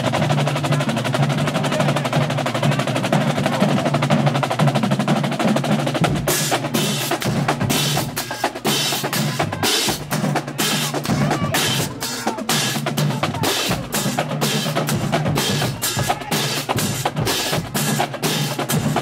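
Marching band drumline playing: snare drums in a fast, continuous roll for about the first six seconds, then a cadence of sharp, evenly spaced drum and cymbal hits. Sousaphones hold low notes underneath.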